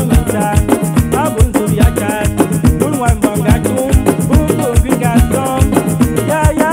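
Upbeat dance music with a fast, even shaker rhythm over a regular bass beat and plucked melodic lines.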